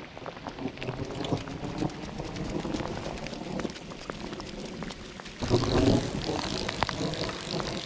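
Rain pattering close to the microphone, with many small drop ticks, over wind buffeting the microphone. The noise grows louder about five and a half seconds in.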